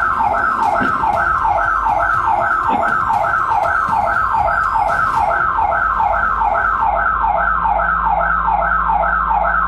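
Security alarm siren sounding, a loud electronic tone sweeping down in pitch about three times a second, over and over without a break.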